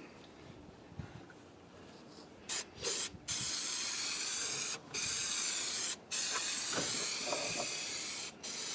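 Aerosol can of high-strength spray adhesive hissing as it coats bare fiberglass. It starts about two and a half seconds in with two short bursts, then three long sprays with brief gaps between them.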